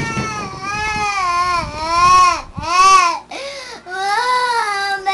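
A young boy crying loudly in pain from a wound on his ankle: a string of long wails that rise and fall in pitch, the loudest about three seconds in.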